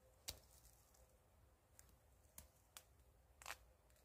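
A few short, sharp crackles and rustles as polyester stuffing is torn out of a plush teddy bear, the strongest about a third of a second in and a slightly longer rip near the end. Overall faint.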